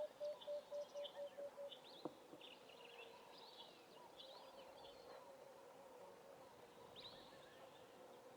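A dove's song: a run of short, soft coos on one low pitch that come quicker and quicker and fade out about two seconds in. Faint high chirps of small birds go on through the rest.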